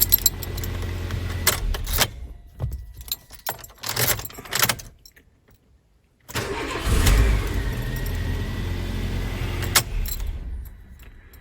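Nissan Primera engine running, then switched off about two seconds in, followed by a few key clicks. About six seconds in it is cranked on the second key and catches at once, idles steadily, and stops near the end; the immobiliser is accepting this key.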